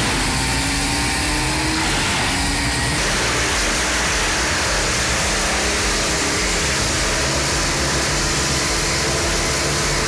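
Wood chipper running and shredding wood, its engine pitch shifting up and down in the first few seconds.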